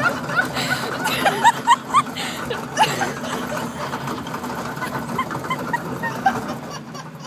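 People laughing and giggling in many short, high, rising squeals, thickest in the first few seconds and thinning out, over a steady low hum.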